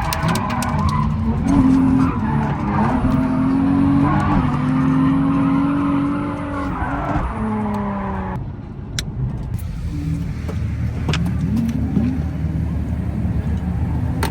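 Drift car engine revving up and down with tyres skidding, the pitch rising and falling as the throttle changes. About eight seconds in the sound changes abruptly to a different mix of engine and tyre noise.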